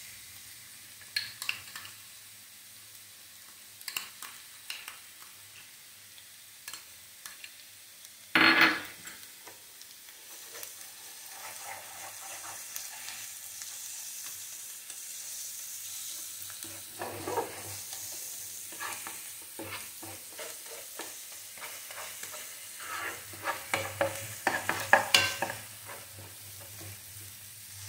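Onion and red chilli paste sizzling in oil in a nonstick frying pan while a steel spoon stirs and scrapes it round. The spoon strokes come irregularly, with a louder stroke about eight seconds in and a quick run of strokes near the end.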